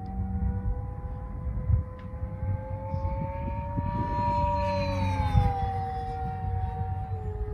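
Electric motor and 8x8 propeller of an E-flite Rare Bear 880mm RC plane on 4S, flying overhead with a steady whine. The whine rises in pitch about halfway through, then falls back, over a low rumbling noise.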